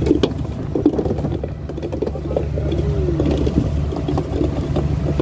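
Fishing boat's engine running steadily, with crew voices calling out faintly and intermittently over it.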